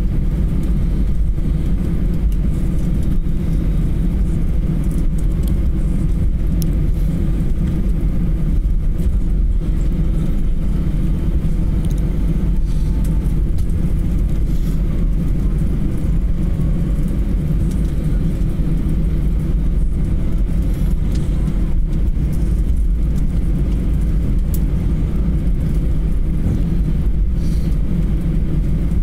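Cabin noise of an Airbus A320 taxiing after landing: a steady low rumble of the engines at idle and the aircraft rolling along the taxiway, heard from inside the cabin over the wing.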